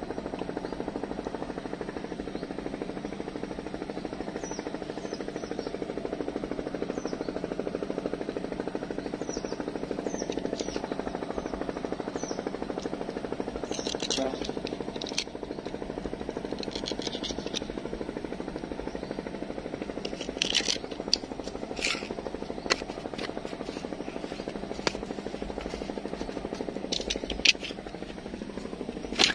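A motor engine runs steadily with an even, pitched drone. From about halfway through, hands handling small plastic fishing tackle close to the microphone add short clicks and scrapes.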